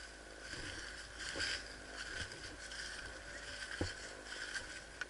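Low rustling and handling noise, with a single sharp knock a little before four seconds in.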